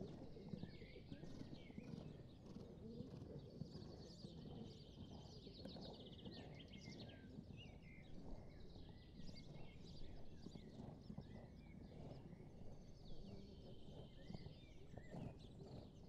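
Faint hoofbeats of a trotting horse on a sand arena, with birds chirping and trilling above them.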